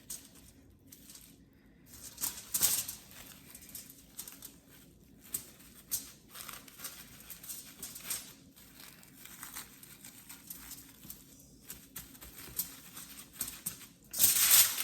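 Plastic wrap crinkling and rustling in irregular bursts as hands roll and press a soft log of mixture inside it, with a louder burst of crinkling near the end.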